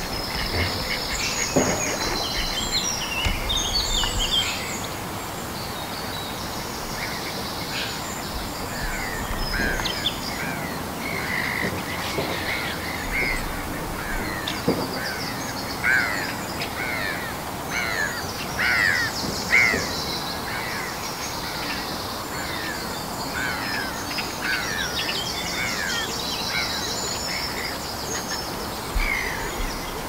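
Wild birds singing and calling, with short chirps repeating through the middle and higher trills near the start and end, over a steady rush of water.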